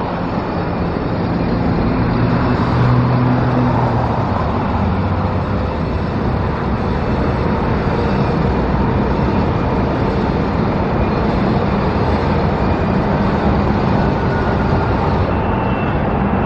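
Steady road traffic noise, with the low hum of a passing vehicle's engine a couple of seconds in.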